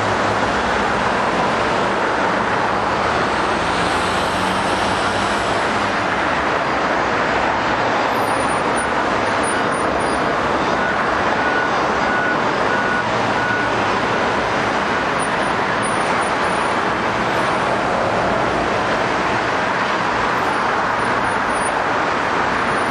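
Steady, dense road-traffic noise with the drone of heavy vehicle engines, unbroken throughout, and a few faint short beeps about halfway through.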